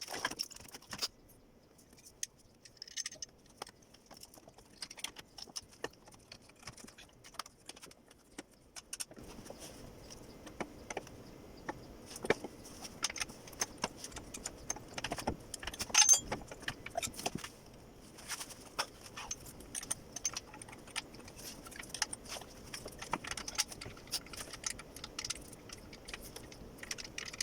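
Wrench and bolts clinking and clanking on metal as an engine mount is bolted in: scattered sharp clicks at an uneven pace, one louder clank near the middle. A faint steady hiss comes in about a third of the way through.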